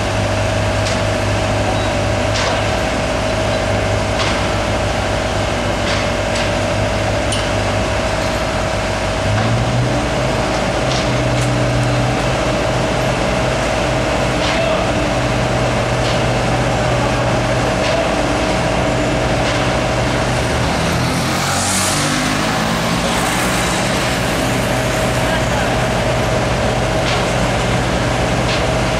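Heavy diesel construction machinery running steadily with a constant whine over the engine note; the engine picks up speed about a third of the way in and slows down about two-thirds in, with a short hiss at that point. Sharp metal clanks sound now and then.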